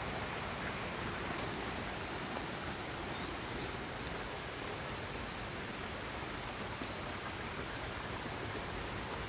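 A stream's water rushing steadily, an even noise without breaks.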